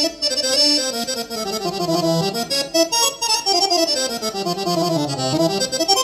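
Accordion patch on a Korg Nautilus keyboard workstation, playing a quick melodic line of many notes that falls in pitch and rises again near the end.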